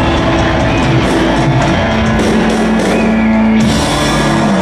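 Live rock band playing loud, with electric guitars and drums holding sustained chords.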